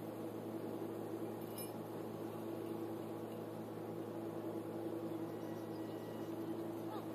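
Steady mechanical hum with a constant pitch, from a motor or machine running, with a faint click about one and a half seconds in.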